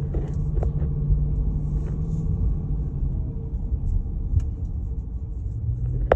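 2022 Dodge Durango R/T's 5.7 L Hemi V8 with the muffler deleted and stock resonators kept, heard from inside the cabin while driving. It makes a steady low exhaust rumble that eases a little a couple of seconds in and builds again near the end.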